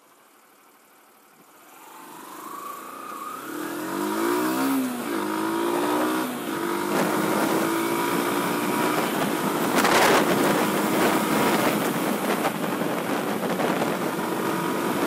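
Yamaha YBR125's single-cylinder four-stroke engine rising out of near silence and pulling away, revving up and changing gear about four to six seconds in, then running steadily at road speed with wind rushing over the microphone.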